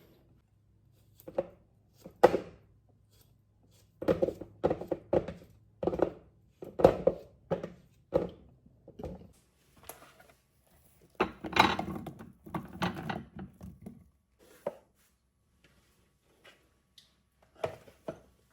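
A series of irregular knocks and thuds, as of things being handled and set down, with a denser cluster partway through.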